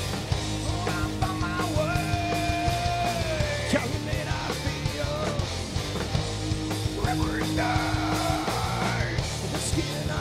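Groove metal band playing live: heavy, dense rock with regular drum hits and long held, bending lead notes.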